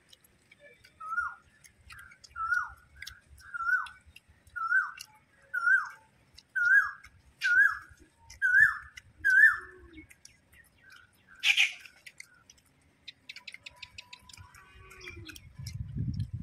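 A bird repeating a short whistled call about once a second, each note rising then dropping in pitch, some ten times and growing louder before it stops. A short harsh noise follows.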